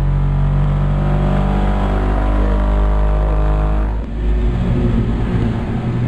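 Car-audio subwoofers in a sealed enclosure playing a loud, sustained very low bass tone for an SPL (Term Lab) metering run, with the truck's cabin and rear window driven hard by the pressure. About four seconds in the bass turns choppier and pulsing.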